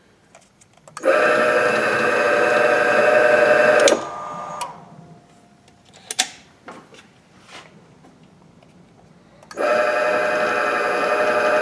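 Cincinnati Royal drill press's three-phase motor, fed by a TECO L510 variable frequency drive, snaps up to speed about a second in and runs with a steady many-toned hum and whine. A few seconds later the emergency stop cuts it off sharply, with a fading tone for about half a second as the spindle brakes to a quick stop, believed to be the drive's DC braking. A few clicks follow, and the motor starts again near the end and runs steadily.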